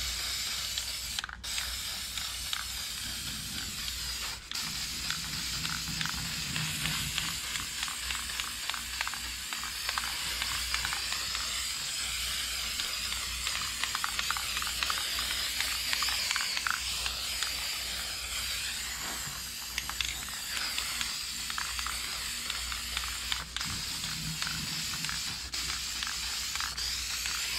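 Aerosol spray can of rust reformer hissing in long, nearly unbroken passes, with small clicks throughout and brief breaks about one and four seconds in.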